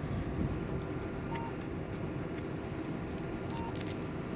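Steady background hum from the idling patrol car, with faint paper and pen sounds and a short high electronic beep twice, about two seconds apart.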